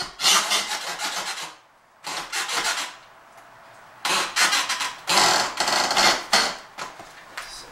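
Drywall and wooden wall framing scraping and rasping as they are worked apart by hand: several loud, rough strokes of uneven length with short pauses between them, one pause a little under two seconds in and a longer one around three seconds in.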